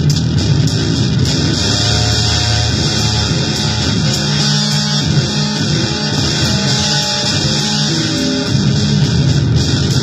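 Electric guitar played through an effects pedal under test: a heavily distorted, noisy tone with a few held notes that shift in pitch, over a constant loud hiss.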